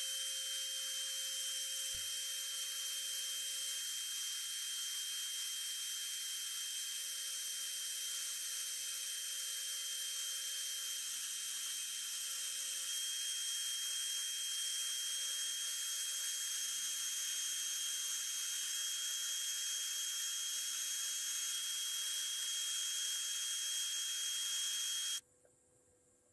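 A small high-speed power tool running steadily, a high whine over hiss, that stops abruptly about a second before the end.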